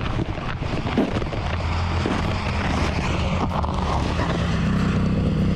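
Footsteps crunching in snow at first, then a steady low engine drone that comes in about a second and a half in and grows a little louder near the end.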